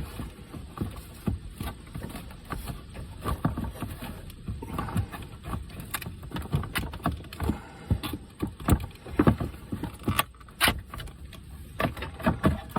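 Irregular plastic clicks, taps and rattles as the turn-signal bulb sockets are squeezed and worked loose from a Camaro's front signal light housing.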